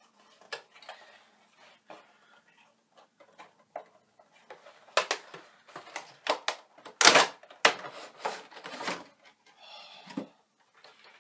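Cardboard box and clear plastic insert being handled as a Funko Pop vinyl figure is taken out of its box: scattered clicks and crackles, with a dense run of sharp plastic crackling about halfway through.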